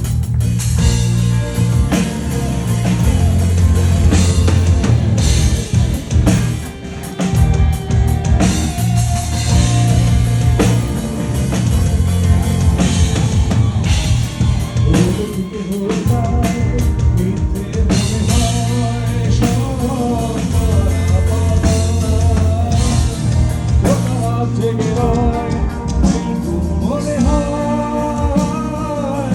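Rock band playing live at full volume: drum kit, bass and electric guitar, with a melodic line wavering above them.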